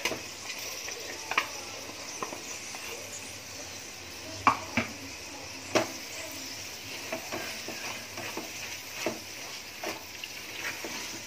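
Vegetables and ground spice paste sizzling in hot oil in an aluminium pot as a wooden spoon stirs them, the spoon knocking against the pot at irregular moments.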